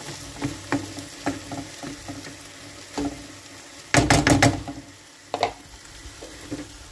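Plastic spatula stirring and scraping menemen in a frying pan, with the eggs, tomatoes and cheese sizzling softly. There are scattered light scrapes and clicks, and a brief louder clatter about four seconds in.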